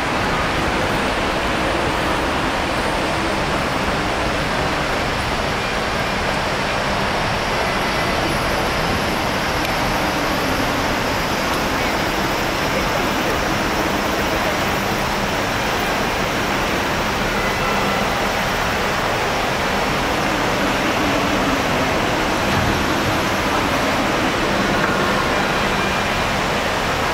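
Steady, even rushing noise with no distinct events, at the same level throughout.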